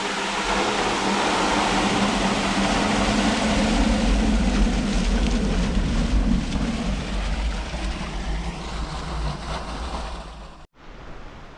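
Loud, steady rushing water with a deep rumble underneath, cutting off abruptly near the end.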